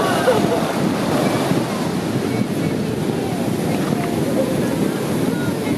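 Ocean surf breaking and washing up a sandy beach, a continuous rushing wash, with wind buffeting the microphone.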